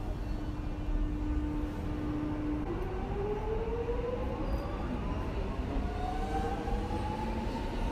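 Alstom X'trapolis 100 electric multiple unit starting up and accelerating. A steady hum holds for about two and a half seconds, then the traction whine climbs steadily in pitch as the train gathers speed, over a low rumble.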